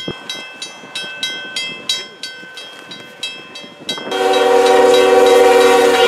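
A railroad crossing bell dinging about three times a second. Then, about four seconds in, a Canadian National freight locomotive's multi-chime air horn sounds loudly, a chord of several notes held steady, over the rush of the train plowing through deep snow.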